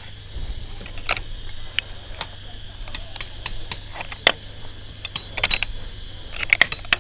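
Irregular sharp light clicks and clinks of camping gear being handled, over a steady high buzz of cicadas.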